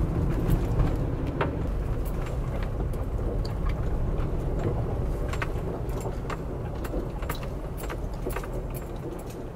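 Car running, heard from inside the cabin: a steady low engine and road rumble that slowly gets quieter as the car slows down. Scattered light clicks and ticks are heard over the rumble.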